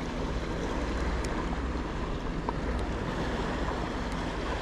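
Steady sea ambience: water washing and lapping around the paddle board, with wind on the microphone and a few faint clicks.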